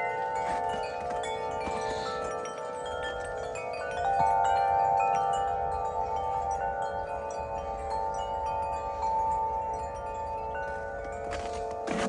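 Several wind chimes ringing in the wind: many overlapping tones struck over and over and left to ring on, swelling louder about four seconds in.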